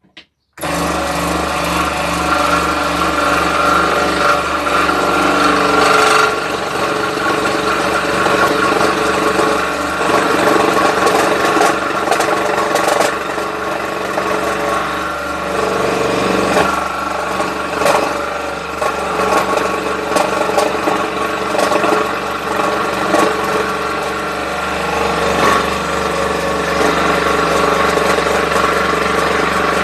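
Scroll saw running, its fine reciprocating blade cutting a wooden board that is fed by hand. The steady machine sound starts suddenly about half a second in.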